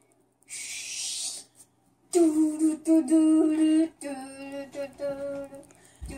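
A young boy singing his own song with no instrument, in long held notes. A breathy hiss comes about half a second in. The singing starts about two seconds in, loudest at first and softer from about four seconds in.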